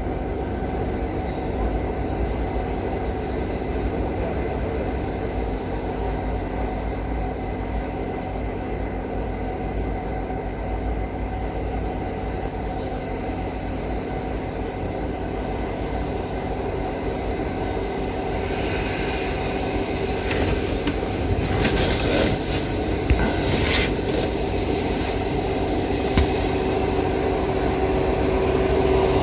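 Steady low mechanical running sound, like a vehicle engine running, with a cluster of clicks and knocks about two-thirds of the way through.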